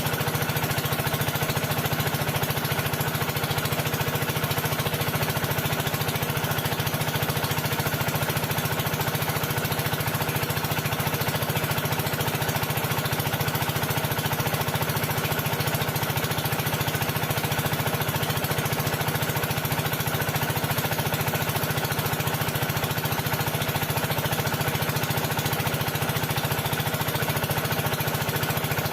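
A small engine or motor-driven machine running steadily with a fast, even chugging pulse and a low hum, holding the same speed and level throughout.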